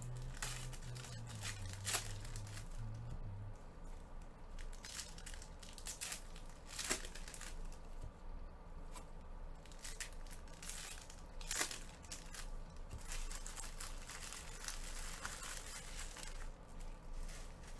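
Trading-card pack wrappers being torn open and crinkled by gloved hands while cards are flipped and stacked, giving a run of papery crackles and rustles. Three sharper crackles stand out.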